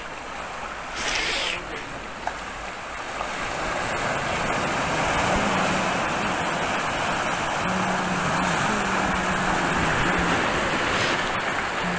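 Sea surf washing over a rocky shore: a steady rushing of breaking waves that grows louder about three seconds in and then holds.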